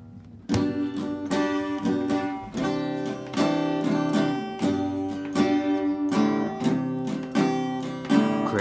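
Acoustic guitar strumming chords at a steady pace as the instrumental intro to a song, starting about half a second in.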